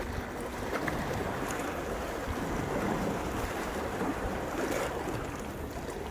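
Sea waves washing in with wind buffeting the microphone, in swelling, uneven rushes.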